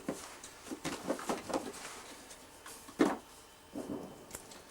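Handling noises: a quick run of soft taps and rustles, then a single sharp knock about three seconds in and a couple of lighter taps after it.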